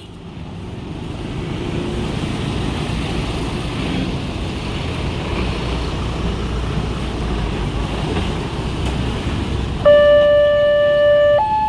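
Road traffic noise, then about ten seconds in a railway level-crossing warning siren switches on suddenly: a loud steady electronic tone that steps up to a higher tone near the end, the start of an alternating two-tone warning.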